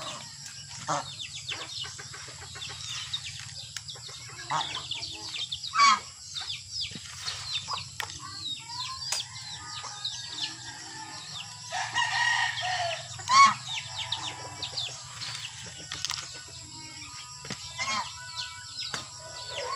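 Backyard poultry calling: many short chirps and clucks from chickens and other fowl, with a louder, longer call about twelve seconds in. A faint low hum runs underneath.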